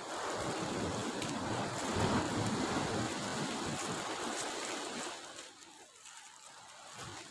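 Sea waves surging and washing, an even rushing sound that dies down about five seconds in.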